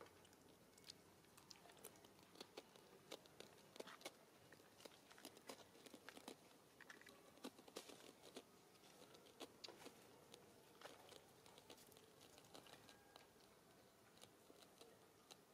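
Faint, irregular clicking and crackling of macaques chewing and handling food.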